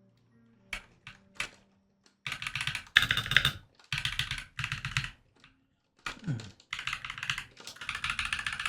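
Typing on a 96% mechanical keyboard: a few single key presses, then several quick runs of rapid key clicks with short pauses between them.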